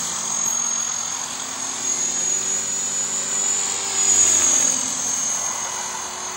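450-size radio-controlled model helicopter in flight, its rotor and motor hum shifting slightly in pitch as it manoeuvres and swelling louder about four seconds in.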